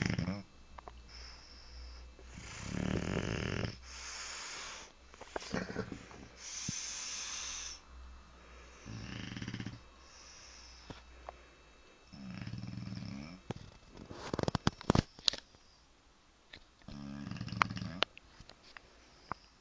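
A sleeping pet snoring, a snore every two to three seconds, some with a low rattling buzz and others breathy. A few sharp clicks near the three-quarter mark are the loudest sounds.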